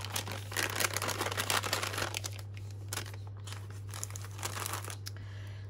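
A paper gift bag crinkling and rustling as it is opened and handled to take out rolls of washi tape. The rustling is loudest for the first couple of seconds and softer after that.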